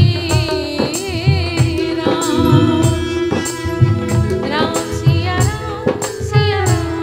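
A woman sings a Hindi devotional bhajan into a microphone with strong vibrato, backed by a live band: a held drone note and a steady percussion beat.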